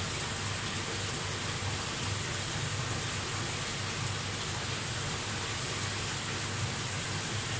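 Steady rushing, splashing water from a saltwater aquarium's circulation, with a low hum underneath.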